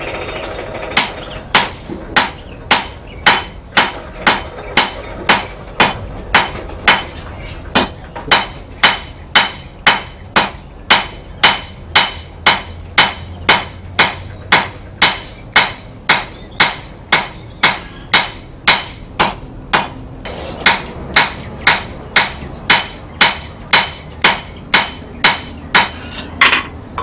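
Blacksmith's hammer striking hot steel on an anvil at an even pace of about two blows a second, with a faint anvil ring between blows, drawing out and thinning the metal for a trowel.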